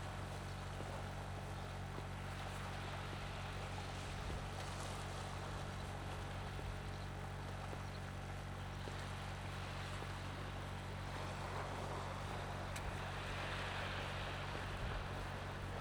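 A steady low engine drone, with an even hiss over it.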